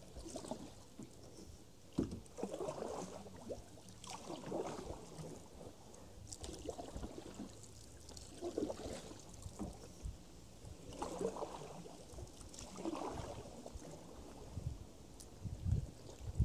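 Canoe being paddled through flood water. The paddle strokes make a swish and gurgle of water about every two seconds, with an occasional knock.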